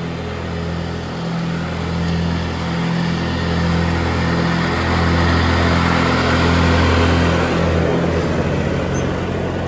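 A small gasoline engine running at a steady speed, getting louder until about seven seconds in and then fading a little.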